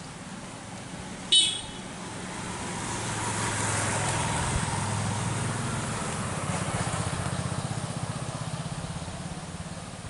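A motor vehicle's engine passing by: a low rumble swells from about two seconds in, peaks around four seconds, pulses near the end and fades away. A single short, sharp, high-pitched note sounds about a second in.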